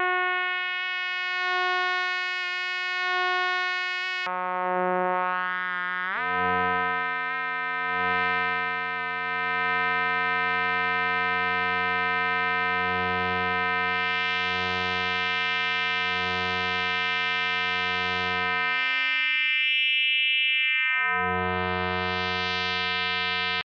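K-ACCUMULATOR synthesizer oscillator module in damped-sync mode: a sustained pitched synth tone with many overtones, pulsing slowly. About six seconds in it glides quickly upward in pitch and becomes a fuller, deeper tone, which thins out briefly near the end and then cuts off.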